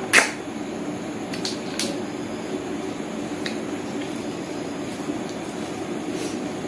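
A person eating snail curry by hand: right at the start, a short rising suck ending in a sharp loud pop as a snail is sucked from its shell. A few fainter clicks of snail shells and fingers on a steel plate follow, over a steady low hum.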